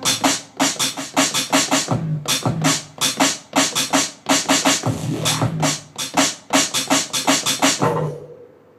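Electronic beat triggered from a Maschine Mikro pad controller: rapid repeated chopped hits, several a second, over a bass line, with a scratch-like sound. It cuts off suddenly about eight seconds in.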